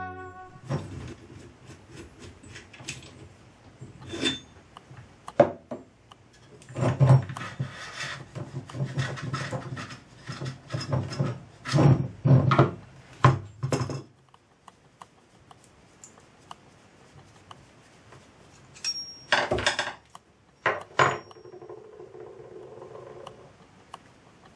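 Metal parts of a model traction engine handled on a wooden workbench: irregular clinks, knocks and rattles, busiest in the first half and sparser after about 14 seconds.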